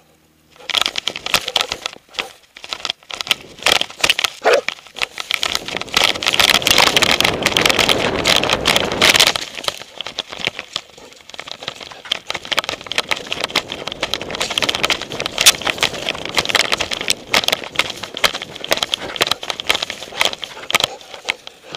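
Handling noise from an action camera strapped to a running dog: rapid, irregular knocking, rattling and scraping as the camera jolts against the dog's body. A louder rushing noise runs from about six seconds in to about nine and a half.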